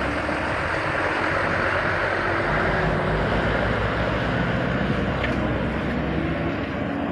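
Road traffic close by: a heavy truck's engine and tyres passing, a continuous steady rumble that swells slightly midway.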